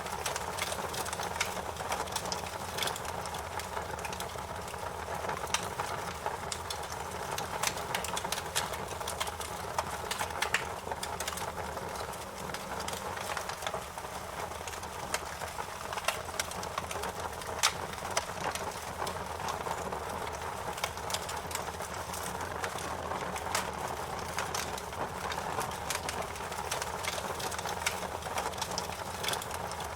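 Wood fire crackling, with frequent sharp pops and snaps over a steady hiss of burning.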